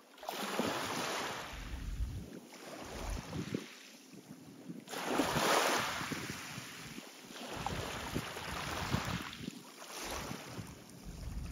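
Harbour waves washing against the waterside in three slow swells, the loudest midway, with wind buffeting the microphone.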